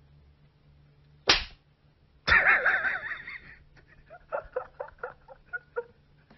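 A sharp slap-like crack about a second in, then a louder wavering cry lasting about a second, followed by a quick run of short high-pitched pulses.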